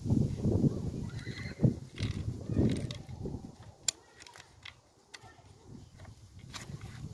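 Hard plastic clutch pedal bracket of a Volkswagen Golf being handled and pressed as a new clutch master cylinder is worked into it: low rubbing and knocking for the first few seconds, then a few sharp plastic clicks.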